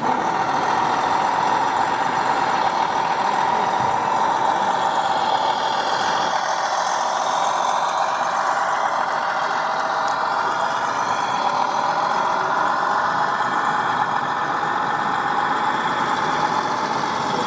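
Radio-controlled scale model truck running, its drive giving a steady whine that sags slightly in pitch midway and rises again near the end.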